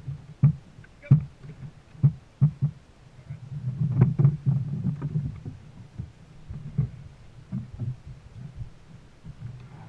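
Sounds aboard a dragon boat under way: irregular low thuds and knocks with water splashing, bunching together for a couple of seconds in the middle.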